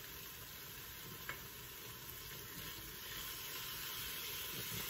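Spiced onion-tomato masala sizzling in a Lodge cast iron mini wok just after water has been poured in, while a spatula stirs it through. There is one light tap about a second in, and the sizzle swells a little in the second half.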